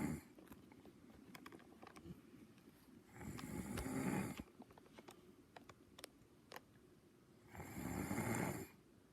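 Slow snoring: two drawn-out snores about four and a half seconds apart, one about three seconds in and one about seven and a half seconds in, each lasting a little over a second. Faint clicks fall in the quiet between them.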